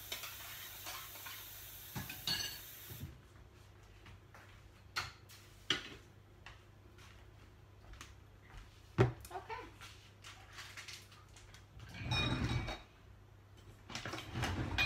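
Kitchen clatter: scattered knocks and clinks of dishes, pans and utensils, with one sharp knock about nine seconds in. Near the end comes a rattle of utensils as a cutlery drawer is opened and searched. A faint hiss stops about three seconds in.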